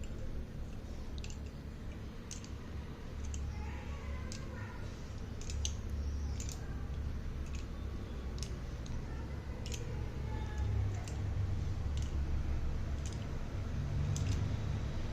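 Irregular sharp clicks and taps, about one a second, as slate pencils and their packaging are handled, over a steady low hum.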